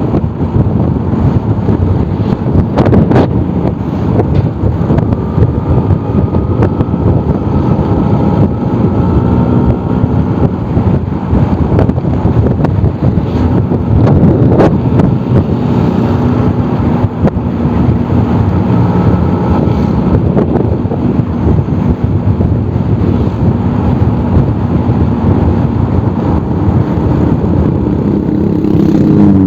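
Old Vespa scooter's two-stroke engine running while under way, its pitch stepping up and down several times with throttle and speed, with wind noise on the microphone.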